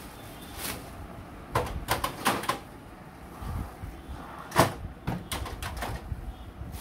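Front door of a Canon imageRUNNER Advance 6275 copier being handled and swung open: a few quick plastic clicks and knocks, then a louder clack a little past halfway, followed by smaller knocks.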